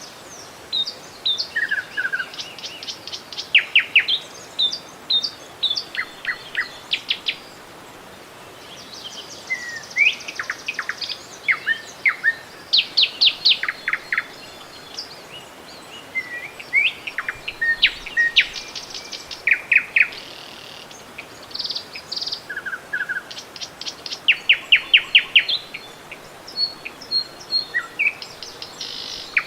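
Songbirds chirping and trilling: rapid runs of repeated high notes and short whistled calls, coming in clusters and overlapping, over a faint steady murmur of river water.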